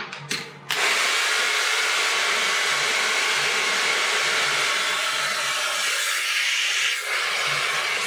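Handheld hair dryer switched on under a second in, then blowing steadily with a loud rushing hiss, briefly dipping near the end as it is moved around the head during a brush blow-dry.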